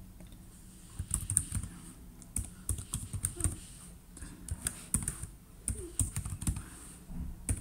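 Typing on a computer keyboard: a run of irregular key clicks in quick clusters, starting about a second in.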